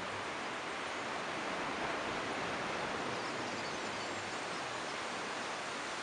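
Steady, even rushing of surf breaking on the beach.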